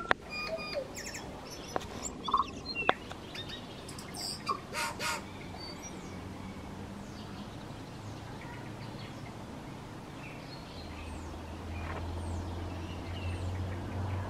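Tui singing: a run of clicks, short whistled notes and a couple of louder bursts in the first five seconds, then only faint, thin falling calls farther off. A low steady hum comes in about eleven seconds in.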